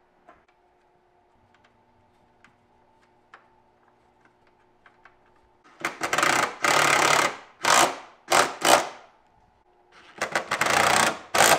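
Cordless impact driver hammering exhaust hanger bolts tight, in bursts: a long run about six seconds in, two short ones, then another long run near the end. Before it, only a faint hum and a few light clicks.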